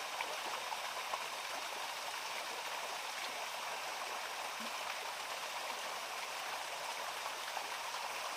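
Steady rushing of a small forest stream, with a few faint clicks in the first second or so.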